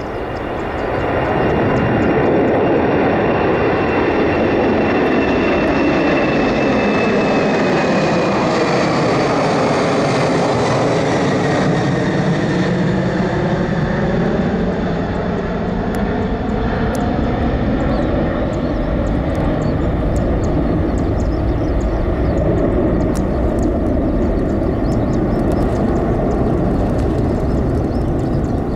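Boeing 747-400 freighter's four jet engines at takeoff-climb power as it passes low overhead: a loud, steady jet rumble with a high whine that drops in pitch as the aircraft goes by, about midway, then carries on as it climbs away.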